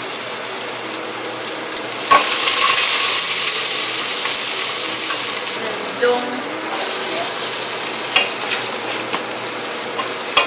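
Curry leaves, ginger and garlic sizzling in hot oil as the base for dal, stirred in the pan. A steady hiss that swells about two seconds in, with a few sharp knocks of the utensil against the pan.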